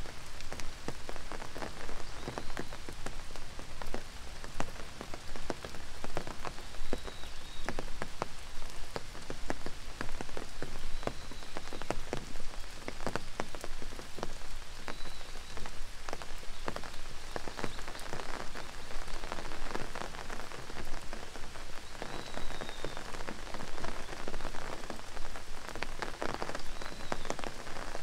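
Steady rain falling, with many sharp single drops striking close by. A faint, short, high chirp comes back every few seconds.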